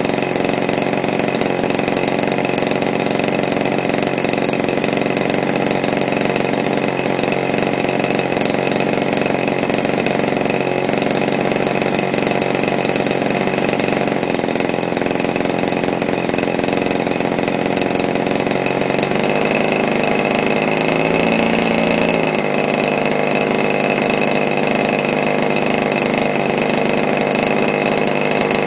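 DLE 30 single-cylinder two-stroke petrol engine running steadily on a break-in run, turning the propeller of an RC model biplane. Its note shifts briefly about two-thirds of the way through, then settles again.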